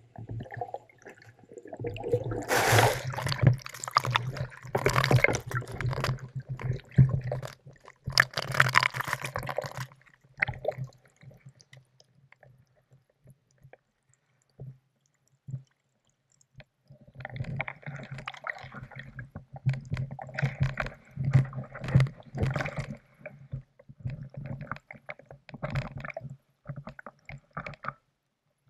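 Muffled water sloshing and gurgling around an action camera's waterproof housing as it moves through slushy, ice-strewn lake water. The sound falls almost silent for several seconds about halfway, then the sloshing picks up again.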